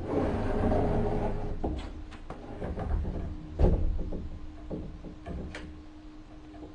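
Cabin of a Keio 7000 series electric train standing at a station: a steady equipment hum, a rush of noise in the first second or so, then scattered knocks, with the heaviest thump about three and a half seconds in.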